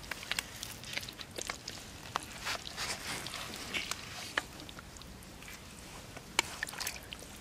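Hands squelching and scrabbling through wet mud and shallow puddle water while gathering snails: irregular wet squelches and small splashes with scattered sharp clicks, two louder ones a little past halfway and near the end.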